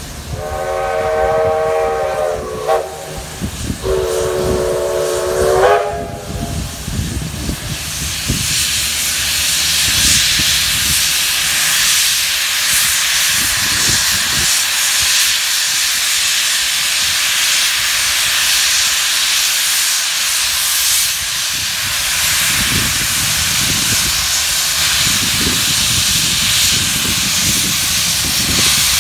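A steam locomotive gives two whistle blasts, each about two seconds long, the second rising in pitch as it ends. Then a loud, steady hiss of steam blowing out from its cylinder drain cocks.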